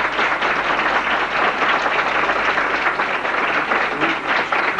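A large audience applauding, a dense, steady clapping that does not let up.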